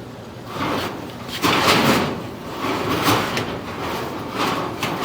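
Duct inspection camera and its push cable scraping and rubbing against sheet-metal ductwork as they are fed along, in several rough swells.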